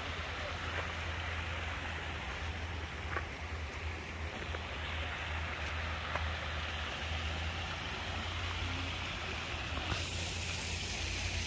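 Shallow stream running over stones: a steady rushing hiss of water, with a steady low rumble underneath.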